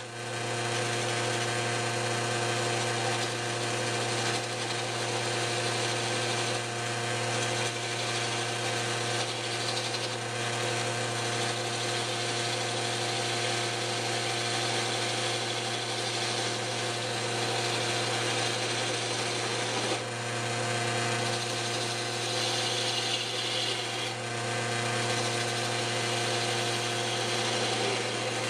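Belt-driven wood lathe running steadily, its electric motor humming, while a hand-held turning tool cuts into the spinning wood blank.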